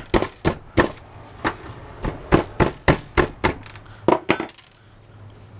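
About a dozen sharp hammer blows at an uneven pace, struck on a long metal tool set against an old corded drill's motor housing to knock the copper windings loose. The blows stop about four and a half seconds in.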